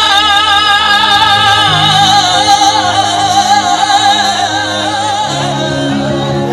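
Devotional song performed live: a singer holds long, wavering melismatic notes with vibrato over a steady sustained instrumental backing.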